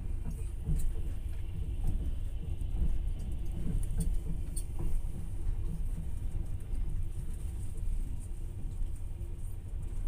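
Passenger train carriage rumbling steadily as it runs, heard from inside, with a few light clicks, two of them close together about four seconds in.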